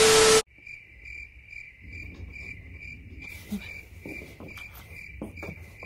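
A brief burst of TV static at the start, then a cricket chirping sound effect: a steady, high, evenly pulsing chirp about four times a second. Faint knocks and scrapes of a pencil poking along the floor under the furniture sit beneath it.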